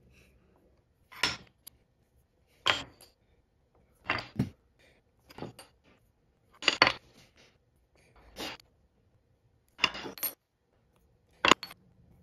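Small metal bottle-opener inserts and screws clinking and clicking against a metal worktable as they are handled and fitted: about ten short, sharp clicks spread out, roughly a second apart.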